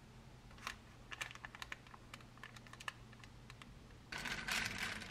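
Faint, scattered light clicks and taps of kitchen utensils on the baked oatmeal and its dish, then about a second of scraping near the end.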